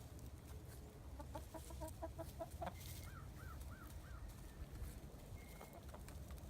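Chickens clucking: a quick run of short clucks about a second in, then four short rising-and-falling calls.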